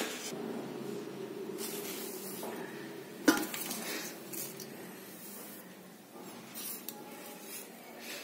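Steel spoon clinking and scraping in an iron kadai of simmering jaggery syrup. A sharp clatter comes about three seconds in, as roasted sesame seeds go into the pan.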